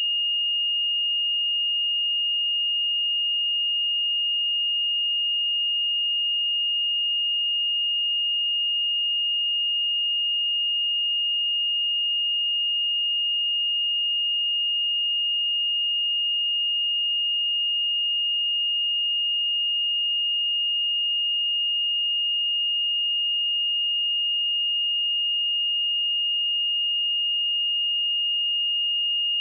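A pure 2843 Hz sine-wave test tone, held at a single steady high pitch and constant loudness.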